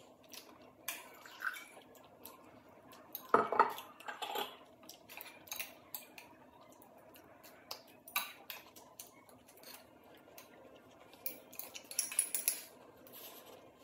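Metal chopsticks clicking and scraping against ceramic bowls and plates, in scattered short clicks, with one louder sound about three and a half seconds in and a slurp from a bowl near the end.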